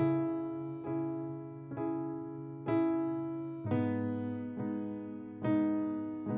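Instrumental piano intro to a slow song: sustained chords struck about once a second, each fading before the next, with the bass moving lower a little past halfway.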